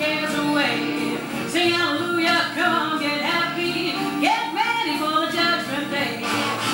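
Music for a swing dance routine: a woman singing over instrumental accompaniment.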